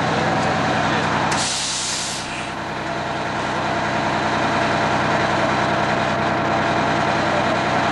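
Fire engine running steadily at a standstill, with a short hiss of air about a second and a half in.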